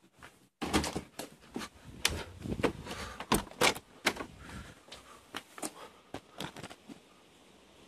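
A door being opened and footsteps, heard as a run of irregular knocks and clicks that dies down near the end.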